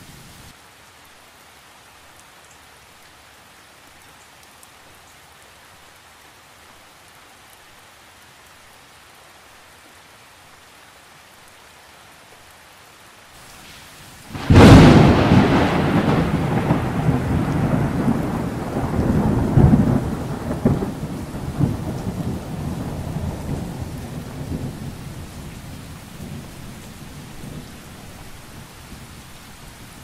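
Steady rain hissing, then about halfway through a sudden loud thunderclap that rolls on as a long low rumble and slowly fades.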